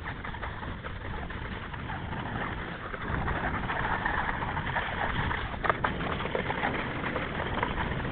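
Snowskate deck sliding and scraping over ice and crusted snow, a rough continuous noise that grows louder about three seconds in, with one sharp knock about two thirds of the way through.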